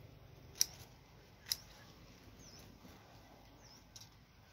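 Two sharp snips about a second apart as choy sum stems are cut, with a fainter click near the end. A faint high chirp repeats about once a second behind it.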